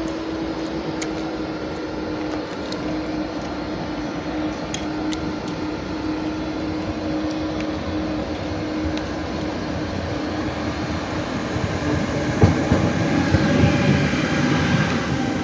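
Siemens Vectron electric locomotive ČD 193 687 running light on a shunting move, getting louder as it comes up and passes close about twelve seconds in, with a few knocks of its wheels over rail joints. Before that a steady electric hum is heard.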